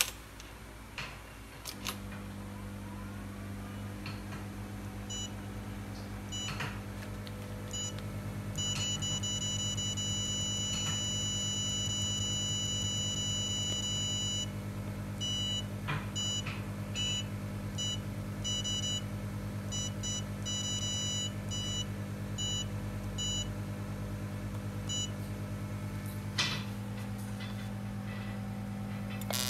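Portable fractional CO2 laser machine switched on with a click and settling into a steady hum about two seconds in. Its touch screen then gives a run of short high beeps, with one long beep lasting several seconds in the middle, and a click near the end.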